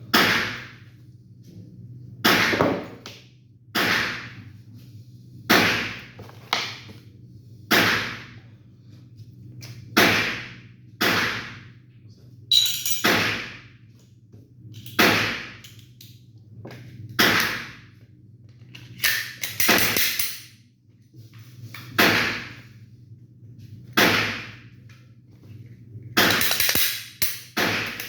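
Sharp metallic clacks from a Glock 17 pistol's slide and action being worked, one every second and a half to two seconds, each fading quickly. A steady low hum runs underneath.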